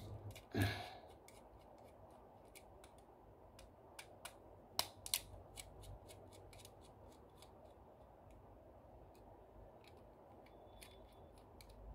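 Small screwdriver working the terminal screws of an air conditioner wall switch: faint scattered clicks and scrapes of metal on metal, with a few sharper ticks around four to five seconds in.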